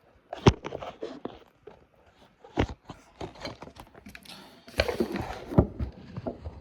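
Objects being handled and set down on a hard surface: several sharp knocks and clatters, with rustling in between.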